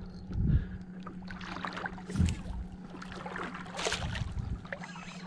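Water splashing as a hooked red drum thrashes at a landing net beside a kayak, with a couple of dull knocks against the hull; the biggest splash comes about four seconds in.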